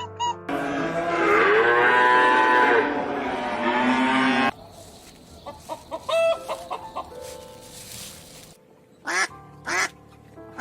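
A cow mooing in one long call of about four seconds, then several short duck quacks, the last two close together near the end.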